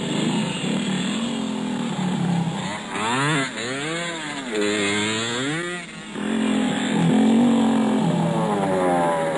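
Trail motorcycle engines running and being revved. The pitch climbs and falls sharply several times between about three and six seconds in, then settles back to a steadier drone.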